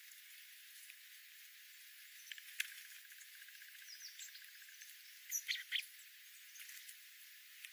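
Small birds chirping over a steady hiss, with a few short high chirps and then three loud short calls in quick succession about five seconds in. A sharp click comes about two and a half seconds in, followed by a brief rapid ticking trill.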